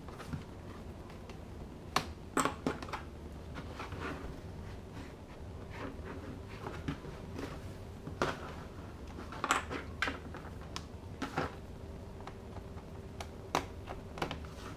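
Scattered sharp clicks and taps of a pry tool and hands working the plastic bottom case of a Lenovo X1 Carbon Gen 6 laptop, its clips snapping loose, at irregular intervals. A faint steady hum sits underneath from about two thirds of the way in.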